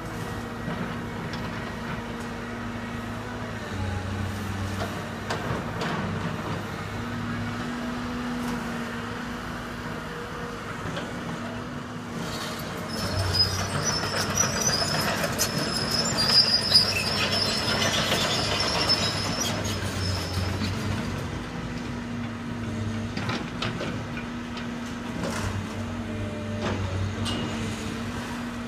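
Tracked excavator's diesel engine running steadily. Partway through, the machine gets louder for several seconds, with a high metallic squeal and some clattering.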